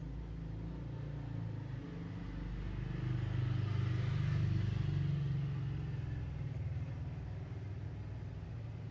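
Low engine rumble that swells to a peak midway and then fades, like a motor vehicle passing.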